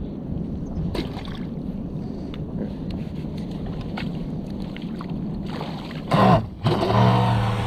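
Electric RC speedboat motor spinning up in two short bursts near the end, a loud whine with the first one sliding in pitch, over light wind and water noise. The boat is held back by a failing battery and speed controller.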